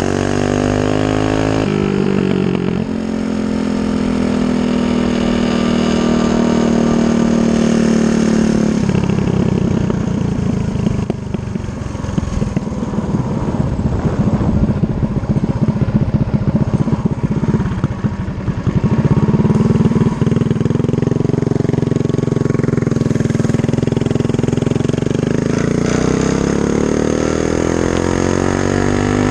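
Stage 3 Predator 212 single-cylinder engine on a Coleman CT100U mini bike under way. Its pitch climbs as it accelerates, then holds steady. About nine seconds in it drops to rough, uneven running as the bike slows for a corner, and it winds up again over the last ten seconds.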